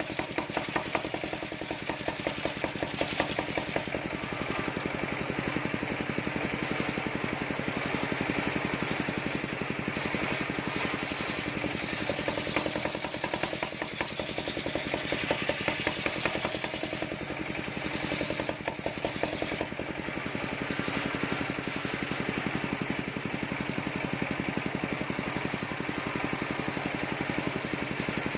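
Large homemade circular saw bench ripping a teak log lengthwise. The engine that drives it runs steadily with a rapid pulsing beat under the hiss of the blade cutting through the wood, which rises and falls as the cut goes on.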